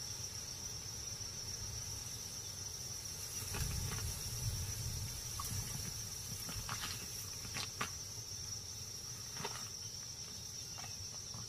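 Steady high-pitched chirring of insects, crickets or cicadas, in a savanna ambience, with a few faint scattered clicks and a faint low rumble about a third of the way in.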